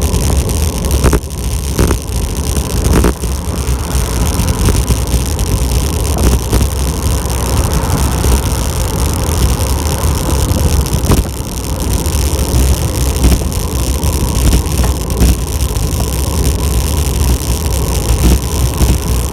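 Steady wind buffeting the microphone with road noise during a fast downhill bike ride, a loud continuous low rumble with a few brief clicks.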